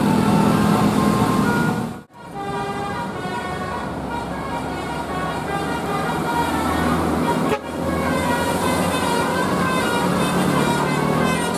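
Bus 'telolet' musical air horn (Basuri type) playing runs of tooting notes that step up and down in pitch, over the noise of the bus. The sound cuts off abruptly twice, about 2 and 7.5 seconds in, and starts again each time.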